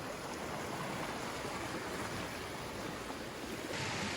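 Steady rushing hiss of water, a little brighter near the end.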